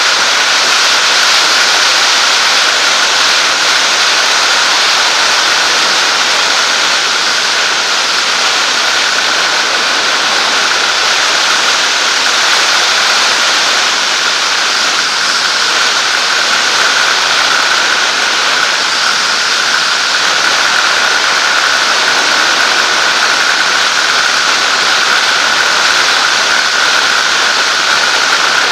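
Zenair 701 light aircraft in cruise flight: its engine and propeller run at a steady drone under a loud, even rush of airflow, with a steady high hum throughout.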